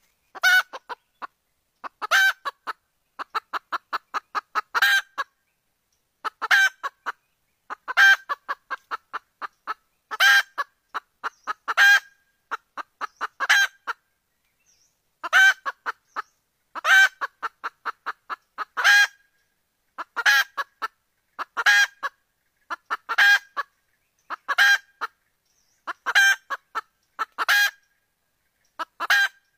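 Red junglefowl hen calling: loud cackling clucks about every one and a half seconds, with runs of quick, softer clucks between them and a brief pause near the middle. This is the wild hen's call that draws roosters to her.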